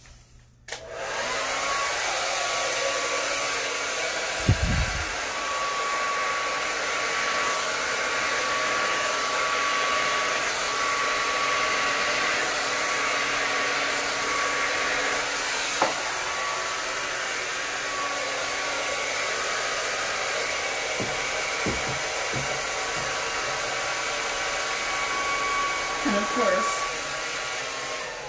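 Hair dryer running with a steady whoosh and a steady whine, switched on about a second in and winding down near the end, used to blow acrylic paint outward in a Dutch pour. A single low thump comes about four seconds in, and a small click near the middle.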